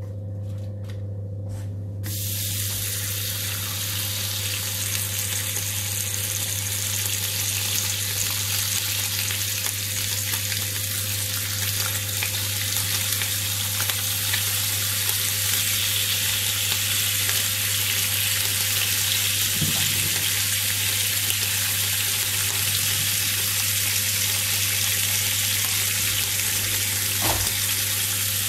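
Raw bacon strips sizzling in hot fat in a nonstick frying pan. The sizzle starts about two seconds in as the first strip goes in, and grows slowly louder as more strips are laid in. A steady low hum runs underneath.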